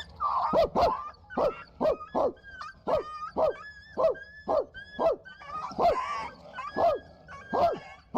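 Dogs fighting, with a rapid run of about fourteen sharp barks, roughly two a second, and a rougher, noisier stretch about six seconds in.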